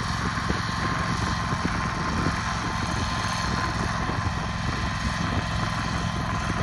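Allis-Chalmers Model G tractor's four-cylinder engine running steadily while it pulls a hoe bar through the soil.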